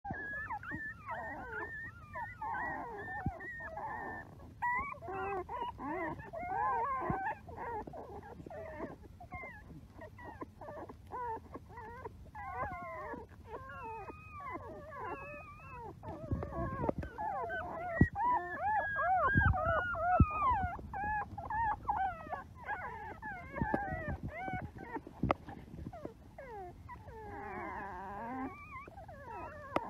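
A litter of newborn puppies squeaking and whimpering while they nurse, with many short rising and falling cries overlapping one another. A few dull knocks come about halfway through.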